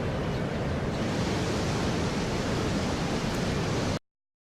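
Steady rushing of a waterfall, a dense, even wash of falling water that cuts off abruptly about four seconds in.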